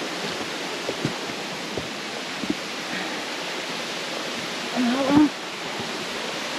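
Stream water rushing steadily over rocks, with a few light knocks and a brief vocal sound about five seconds in.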